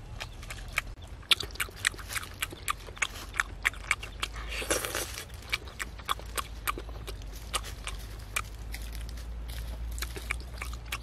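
Close-up sounds of a person eating grilled fish by hand: many small, wet lip-smacks and chewing clicks, with one longer sucking slurp a little under five seconds in.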